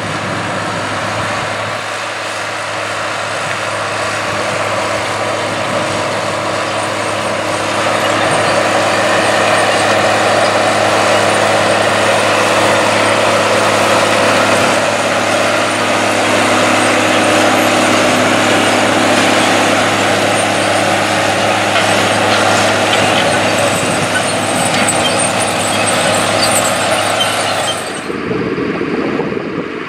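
Diesel engine of a large John Deere row-crop tractor pulling a corn planter, a steady engine drone that grows louder as the tractor comes close. About two seconds before the end it cuts to a John Deere 4255 tractor's engine, quieter and lower.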